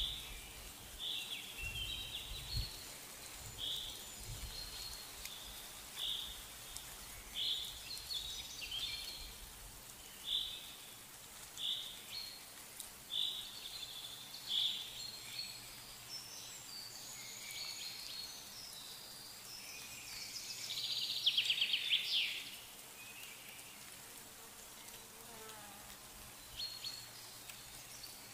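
Outdoor small-animal calls: short high-pitched chirps repeating about every second and a half, with a louder, rapidly pulsing trill about three-quarters of the way through.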